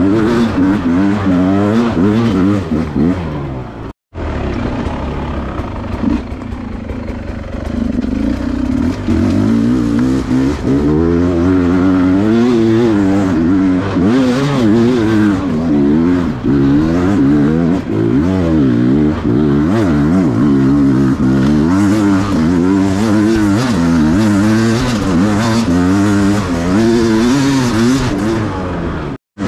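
Enduro motorcycle engine being ridden off-road, its revs rising and falling constantly as the rider works the throttle. The sound cuts out for an instant about four seconds in and again near the end.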